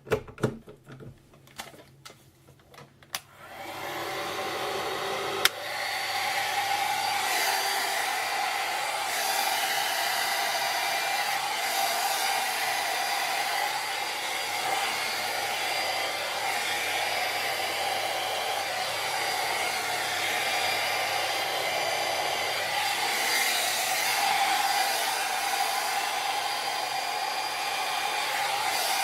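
A hot-air curling brush (hair curler dryer): a few handling clicks, then it is switched on about three seconds in and its fan motor spins up into a steady whir of blowing air. A sharp click about two seconds later, after which it runs a little louder.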